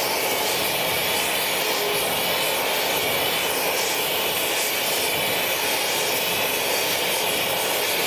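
Oxy-fuel torch flame hissing steadily as it heats a steel steering arm so it can be bent.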